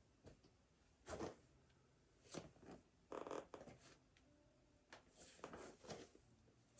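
Soft rustling of clothing and light brushing against a mat in several short bursts, from a person's body moving through repeated full prostration bows.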